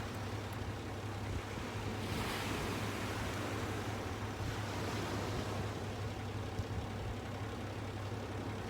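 Sea surf washing on the shore with wind noise, a wave swelling up about two seconds in, over a steady low hum.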